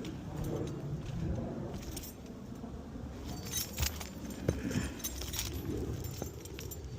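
Light metallic jingling with scattered clicks and scrapes over a steady low rumble; the sharpest clicks come a little past the middle.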